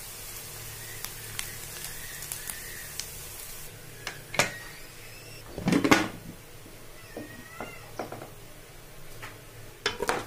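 A cat meowing several times in the background, over bitter gourd sizzling in oil for the first few seconds. A loud clunk near the middle, from the pressure cooker lid being handled, and a few clicks near the end.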